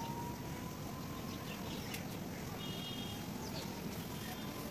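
Steady outdoor background noise with a few faint bird chirps, once past the middle and again near the end.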